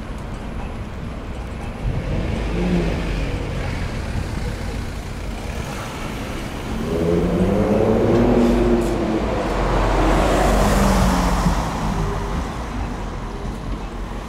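City street traffic: a steady rumble of engines and tyres, with one vehicle passing close by about seven to eleven seconds in, its engine note and tyre hiss swelling and then fading.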